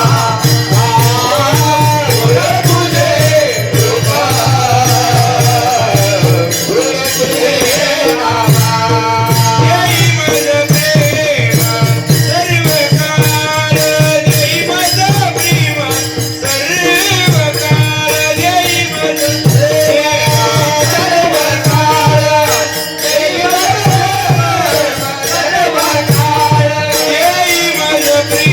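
Varkari devotional singing in a traditional Marathi tune, a singing voice rising and falling over mridang drumming with a steady rhythm of low drum strokes.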